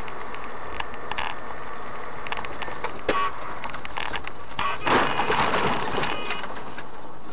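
A car driving, heard from inside: steady road noise with scattered clicks, and a louder rush of noise lasting about a second, about five seconds in.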